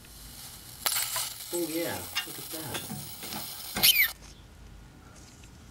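High-voltage arcing at the failed flyback transformer of a vintage color tube television, jumping from the winding to the chassis frame. It is a noisy buzz with a wavering pitch that starts suddenly about a second in, is loudest just before four seconds, and then stops.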